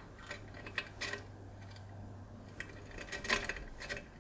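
Irregular light metallic clicking and scraping of a rake pick being worked in a short-cylinder cross lock under light tension. The clicks come in scattered bunches, busiest about three seconds in.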